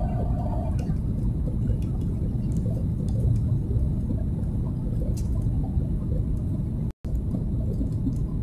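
Cabin noise of a Boeing 737 MAX 8 on approach, heard from a window seat over the wing: the steady low rumble of its CFM LEAP-1B engines and the airflow past the fuselage. A held tone stops within the first second, and the sound cuts out for a split second about seven seconds in.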